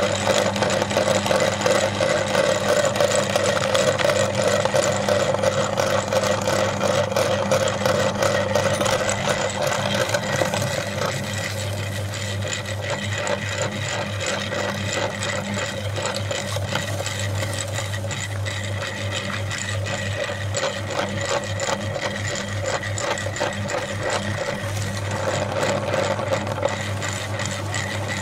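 Motorized meat grinder running with a steady hum while its auger crushes crisp wafer-roll cookies with a dense crackling crunch. The crunching is heaviest for about the first ten seconds, eases off, and picks up again near the end as more cookies go in.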